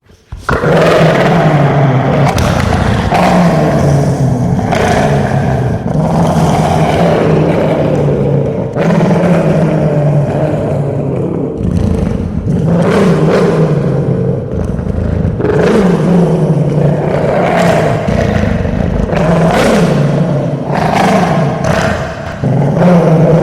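Dogo Argentino growling deeply and without a break, the growl swelling and easing with each breath every second or two.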